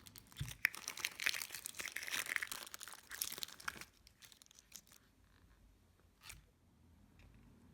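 Thick clear slime mixed with creamy cloud slime being squeezed and stretched by hand, giving dense crackling and popping for about four seconds, then a few scattered pops, one stronger about six seconds in.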